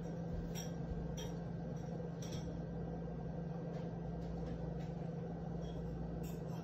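Room tone: a steady low hum with a faint high tone above it, and a few faint, light clicks scattered through.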